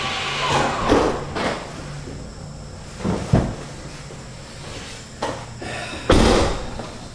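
Tesla Model 3 driver's door being opened, then shut with a thud about six seconds in.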